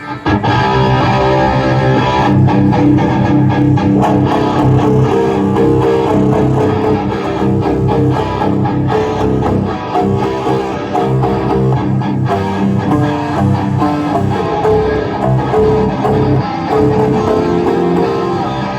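Rock band playing loudly together: an electric guitar riff over bass guitar and drums, starting abruptly.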